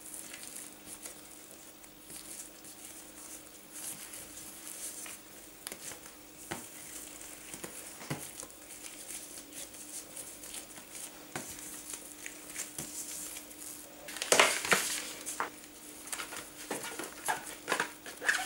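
Plastic-gloved hands rolling and shaping soft brioche dough on a kitchen worktop: soft rustling of the gloves with scattered light taps, over a steady low hum. About fourteen seconds in comes a louder burst of rustling and scraping as the dough ring is handled on the baking tray.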